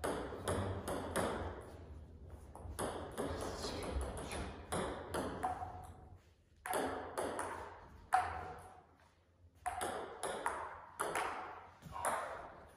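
Table tennis ball clicking back and forth between bats and table in quick rallies, each hit ringing with a short echo in the hall. The rallies break off briefly twice, about six and about nine seconds in.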